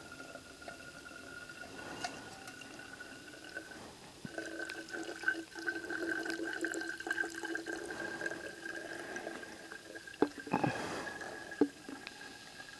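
Water trickling and dripping through a cloth-lined cone coffee filter into a one-liter steel bottle, with a steady ringing note from the filling bottle that breaks off about four seconds in and comes back a little higher. A few light knocks near the end.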